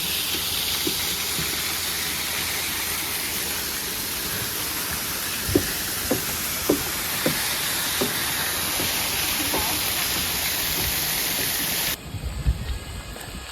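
Waterfall: a steady rush of falling water, with a few soft knocks about six to eight seconds in. It cuts off abruptly near the end.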